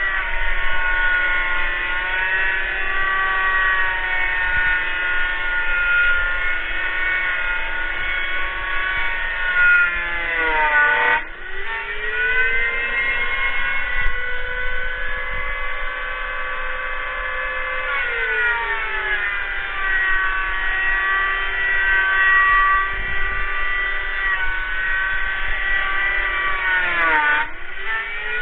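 Electric wood planer running in a sliding jig. Its motor whine sags in pitch as the blades cut along the board, then twice dips deeply and springs back up.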